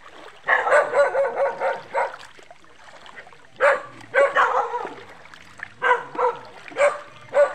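A dog barking repeatedly: a quick run of barks, then single barks and short pairs.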